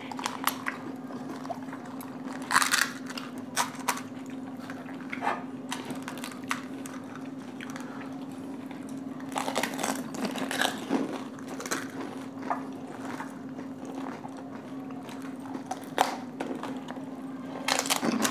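People eating panipuri: crisp puri shells crackling in the mouth, wet slurps of the filling water and chewing, in scattered short bursts over a steady low hum.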